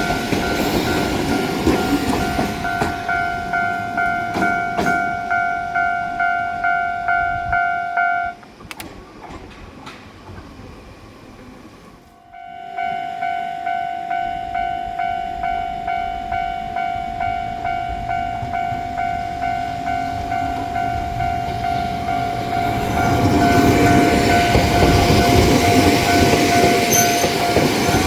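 Level crossing warning bell ringing in a steady repeating pulse, about two strikes a second, breaking off for a few seconds about eight seconds in and then resuming. Near the end an Ohmi Railway 800/820 series electric train comes through with a rising rumble of wheels on the track.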